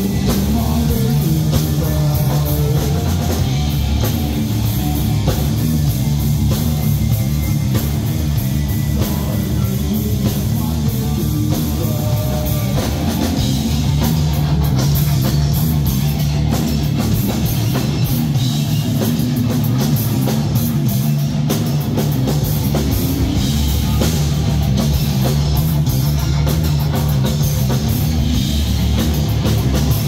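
Live heavy metal band playing loud: distorted electric guitars, bass guitar and a drum kit, heard through the stage amplification.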